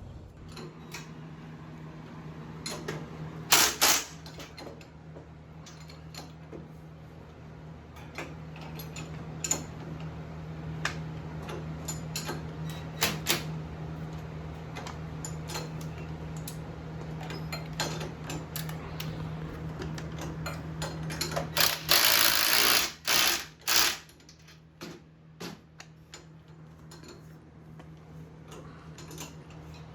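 Rivets being set in a sprint car top wing: scattered sharp clicks and snaps from the riveting and handling of parts, with a louder hiss lasting about a second about two-thirds of the way through, over a steady low hum.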